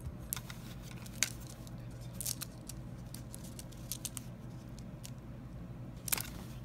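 Rustling and scattered light clicks from small objects and a braided cord being handled on a fabric blanket, over a faint steady low hum.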